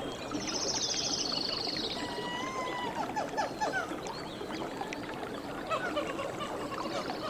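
Nature soundscape of many animal calls overlapping: a dense chorus of frogs croaking and chirping, with bird whistles and a fast, high trill in the first two seconds.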